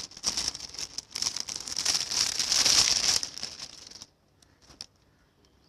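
Packaging crinkling and rustling as a wrapped garment (a shrug) is handled and unwrapped. It stops abruptly about four seconds in, and a few faint taps follow.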